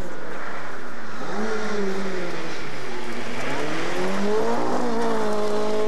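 Rally car engine revving hard, its pitch rising and falling, then climbing to a high steady note about four and a half seconds in.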